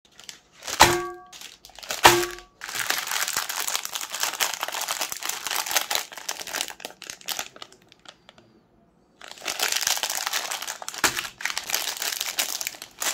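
Two sharp knocks on a glass plate, each ringing briefly, then the crinkling of foil ice cream bar wrappers being handled. The crinkling stops for about a second just past the middle and resumes, with one more light knock on the plate.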